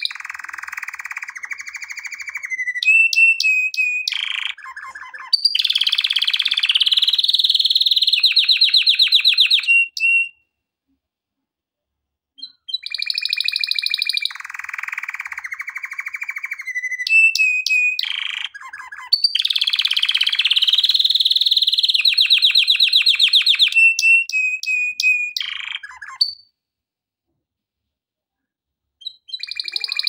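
Male domestic canary singing: two long song phrases of about ten seconds each, made of rapid trills and held rolling notes, separated by a pause of about two seconds, with a further phrase starting near the end.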